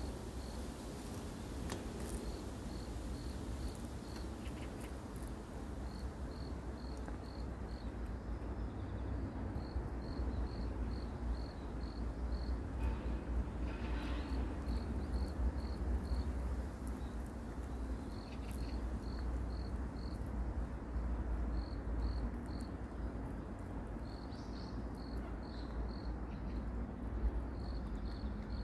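Cricket chirping in short runs of four to six high, evenly spaced pulses, repeating every couple of seconds over a low steady rumble.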